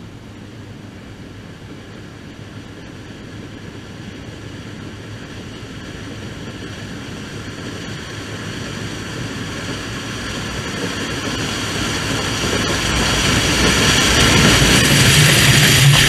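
New Holland TR88 combine harvesting corn and approaching, its machinery noise growing steadily louder as it closes in and passes over, with a low steady hum coming up near the end.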